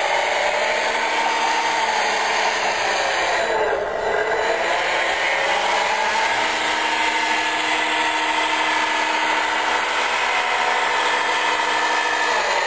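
Electric brushless motor and gear drive of a hand-built RC model tractor whining as it drives, the pitch dipping and climbing back about four seconds in.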